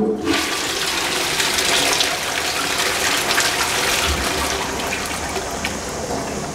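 Wall-hung Twyford Sola rimless toilet flushed from its concealed cistern: a click of the push button, then water rushing into the pan. The rush is loudest in the first two or three seconds and slowly eases off as the bowl drains.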